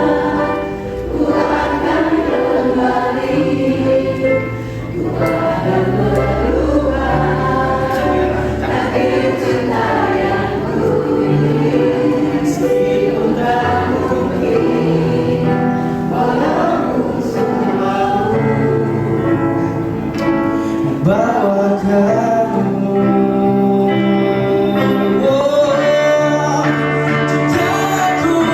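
Background music with a choir singing over a steady bass line.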